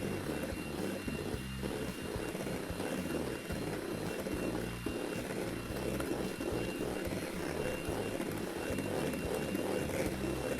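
Electric mixer whipping egg whites and sugar into meringue, its motor running steadily with a thin high whine.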